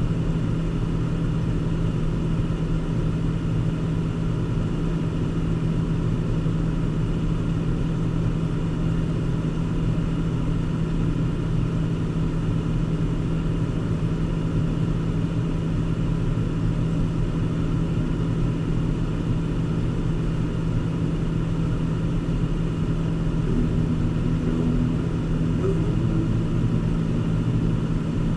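Steady car engine and road noise heard from inside the cabin while driving, an even low drone.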